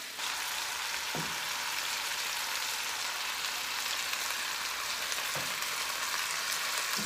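Browned chicken gizzards sizzling steadily in a hot stainless steel skillet as chicken stock is poured over them and tongs turn them. There are a few soft knocks, about a second in, near the fifth second and near the end.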